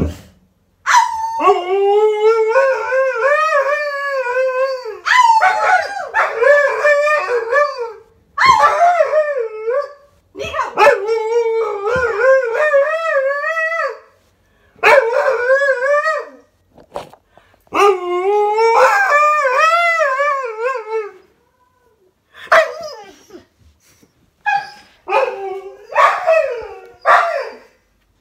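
Alaskan malamute howling and 'talking' in a run of long calls of one to four seconds each, the pitch wavering up and down, with short breaks between them. Near the end the calls turn into shorter, choppier woos and yips.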